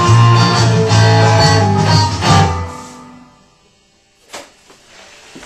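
Electric guitar playing the closing bars of a sixties surf instrumental with a heavy low end, ending about two and a half seconds in and dying away. A few faint knocks and rubbing follow near the end.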